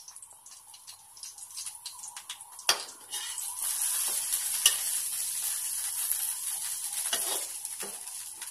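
Eggplant slices sizzling in a little oil in a kadai while a metal spatula scrapes and turns them with small ticks. After a sharp click about three seconds in, the sizzle swells loud, then slowly eases toward the end.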